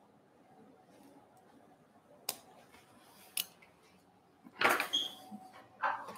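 Metal surgical instruments clicking and clinking as they are handled. There are a couple of sharp single clicks, then a louder clatter of steel on steel about four and a half seconds in.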